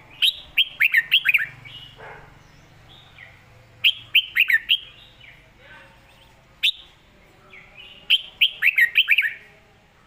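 Caged red-whiskered bulbul singing: three quick phrases of clear, falling whistled notes, near the start, about four seconds in and near the end, with a single note in between. It is the doubled-phrase 'เบิ้ล' song style, clear and bright.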